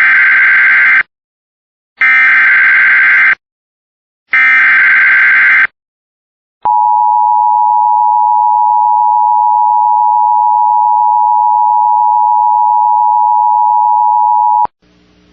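Emergency Alert System alert for a severe thunderstorm warning: three screeching bursts of SAME header data, each a little over a second long and about two seconds apart. After a click, the steady two-tone attention signal sounds for about eight seconds and cuts off suddenly near the end.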